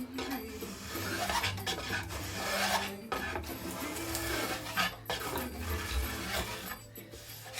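A hand plane shaving wood along a paddle blade in three long strokes, each about two seconds, with brief breaks between them.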